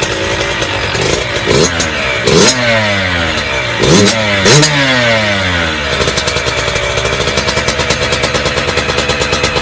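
Small Yamaha YZ two-stroke dirt bike engine revved in about five quick throttle blips, each rising sharply and dropping back, then settling into a steady idle about six seconds in.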